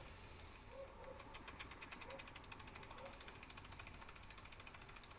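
Small Bing toy steam engine running with a fast, even ticking beat, kept going by the steam pressure left in its boiler after the burner has been taken out.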